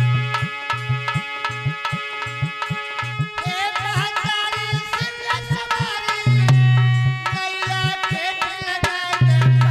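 Instrumental interlude of Alha folk music: a hand drum played in quick strokes, its bass notes bending in pitch, over a steady low note that drops out and returns. A melody instrument with sliding notes comes in about three and a half seconds in.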